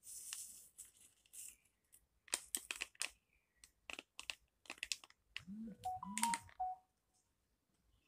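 Crinkling and rustling of a plastic instant-coffee stick sachet as it is shaken and emptied into a stainless steel bowl, with a run of small crackly clicks. Near the end a brief pitched sound rises and falls twice.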